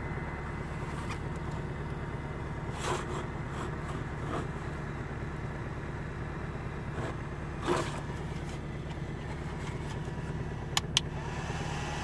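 Steady hum of a car engine idling, heard from inside the cabin, together with the whir of a small portable plug-in car heater fan blowing. A few light clicks and knocks come as the unit is handled on its dashboard mount, the sharpest pair near the end.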